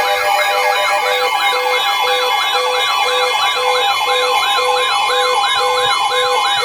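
Several sirens and electronic alarm tones sounding together, loud. Fast up-and-down siren sweeps repeat about three times a second over a few steady tones, and a lower beep pulses about twice a second.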